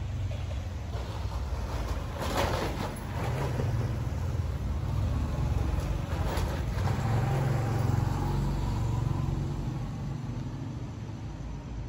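Motorbike engine passing over a railway level crossing, over a steady low rumble, with short louder noises about two and six seconds in.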